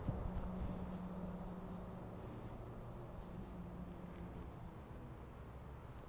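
Quiet outdoor ambience: low wind rumble on the microphone and a faint steady hum that fades out about halfway through, with a few faint, short high chirps. A handling bump at the very start.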